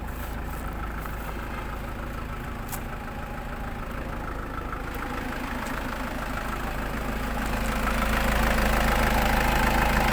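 Nissan Patrol engine running steadily at idle, now starting and running after a cranking no-start fault caused by lost power supply to the ECU was fixed. It grows louder about three-quarters of the way through.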